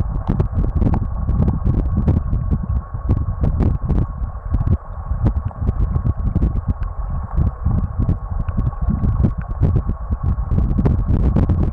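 Muffled rumble of river current flowing over and around an underwater camera, with many small clicks and ticks and a thin steady tone.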